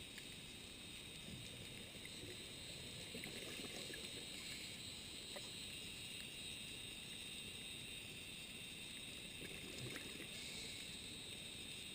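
Underwater ambience picked up by a diving camera: a steady low rumble and hiss with a few faint scattered clicks.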